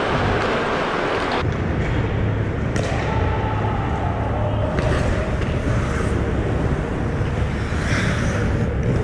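Ice hockey play on a rink: skates scraping the ice, with a few knocks of sticks and puck over a steady low hum.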